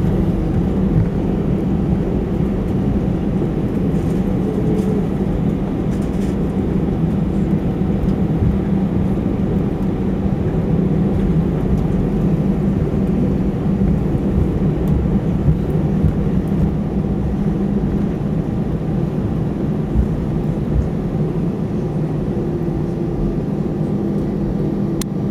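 Airbus A320 cabin noise while taxiing after landing: the engines run at low power with a steady hum and low rumble, unchanged throughout.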